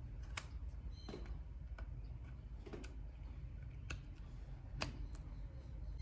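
A clear plastic phone case clicking and snapping as an iPhone 11 is pressed into it: a handful of light, irregular clicks and taps, the sharpest near the end.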